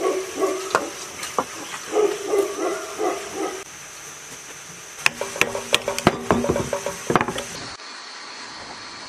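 Metal parts of an old air-cooled diesel engine knocking, clinking and scraping as they are handled and worked loose, with a ringing metallic tone to the knocks. A faster run of sharp clinks and knocks follows, then it stops short, leaving a steady faint hiss.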